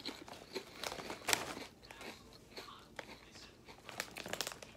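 A person biting and chewing a regular-cut (not kettle) potato chip: a string of irregular crunches, louder about a second in and again near the end.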